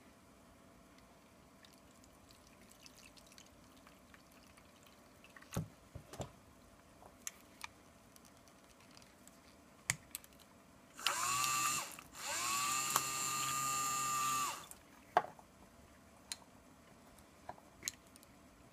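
Small RAM electric bilge pump for an RC model boat running twice, first for about a second and then for about two and a half seconds, its motor whining up to speed and winding down each time as water jets out through the brass stack. A few light clicks before and after.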